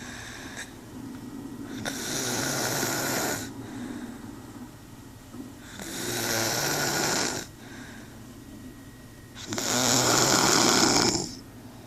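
A woman snoring heavily in her sleep: three loud snores, each about a second and a half long and roughly four seconds apart, with quieter breathing between.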